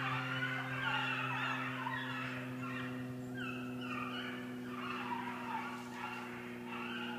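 A pack of rabbit hounds baying as they run a rabbit's scent trail: many overlapping cries, each falling in pitch, over a steady low hum.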